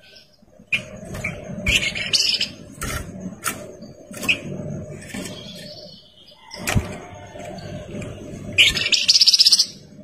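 Caged olive-winged bulbul (kapas tembak) calling: a string of short sharp chirps, then a loud rapid trill lasting about a second near the end. A low background rumble runs underneath.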